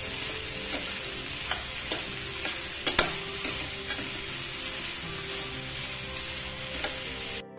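Metal spatula scraping and clinking against a stainless steel frying pan as chopped green beans are stirred in hot oil, over a steady sizzle of frying. The sharpest clink comes about three seconds in, and the sound cuts out briefly just before the end.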